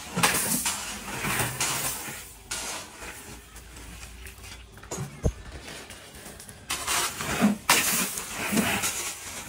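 Crushed stone gravel rattling and rushing as it is handled in a plastic bucket: a rush at the start, and another of about a second near the end as a bucketful is tipped out onto a gravel pile.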